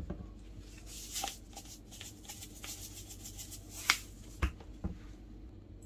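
Small kitchen handling noises: light rustling and clicks, a sharp click about four seconds in, then two dull knocks.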